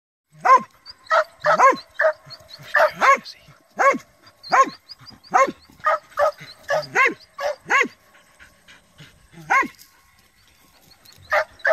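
A dog barking over and over, single barks coming about one to two a second, thinning out to one more bark and then a short pair near the end.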